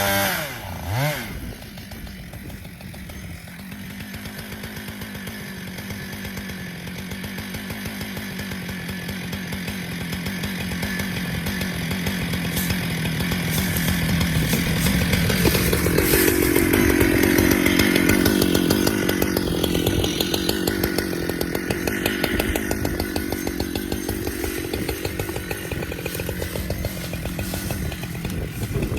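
Husqvarna chainsaw coming down off high revs in the first second, then running on at a low, steady, pulsing throttle, gradually growing louder and then easing off again.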